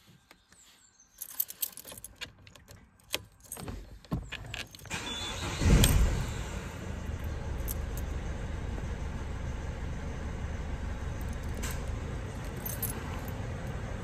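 Keys jangling and clicking in the ignition, then the Citroën C4 Picasso's 1.6 HDi four-cylinder diesel cranks and starts about five to six seconds in and settles into a steady idle.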